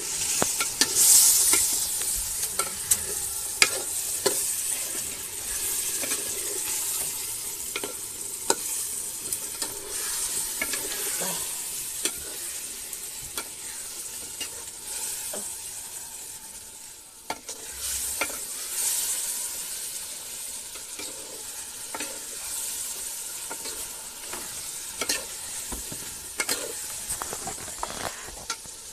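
Chicken meat sizzling in a metal pot as it is fried and stirred with a ladle, the ladle scraping and clicking against the pot. A steady hiss runs throughout, loudest in a burst about a second in.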